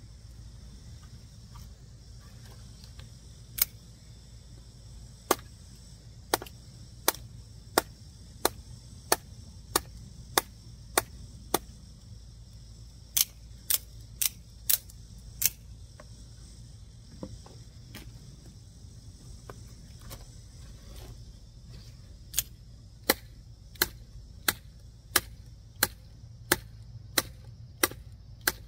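Sharp knocks of an out-the-front automatic knife being bashed against wood, about one and a half strikes a second, in runs of five to ten with pauses between them, over a steady low hum.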